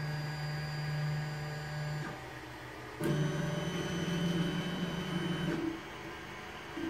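Anycubic i3 Mega 3D printer's stepper motors whining as the print head makes its first moves of a print. The steady tones jump to new pitches with each move, about two, three and five and a half seconds in.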